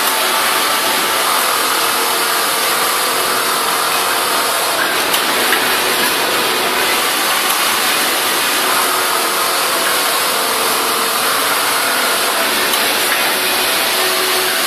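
Steady din of a garment factory floor with many industrial sewing machines running: an even mechanical whir and hiss that does not let up.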